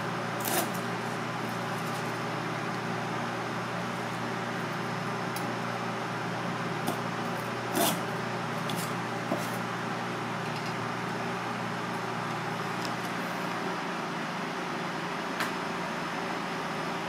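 Steady machine hum, like a ventilation fan, with a few scattered sharp knocks of a kitchen knife on a plastic cutting board while nori is sliced.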